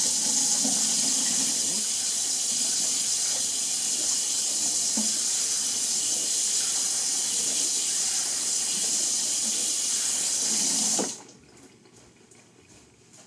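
Sink faucet running steadily while hands are washed under it, then turned off: the flow cuts out sharply about two seconds before the end.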